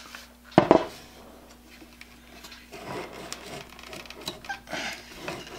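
Handling noise from a Black & Decker 1 hp router being lifted and turned over in the hands. One loud clunk comes about half a second in, then a scatter of lighter knocks and rattles.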